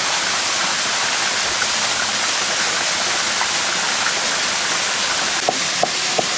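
A stream rushing with a steady hiss. Near the end a stone pestle starts pounding dried chillies in a stone mortar, sharp knocks about three a second.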